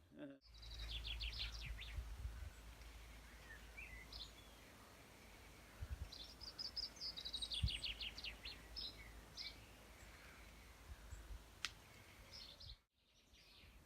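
Songbirds singing outdoors in several short phrases of quick, high notes, the first and longest ones falling in pitch. A low steady rumble runs underneath.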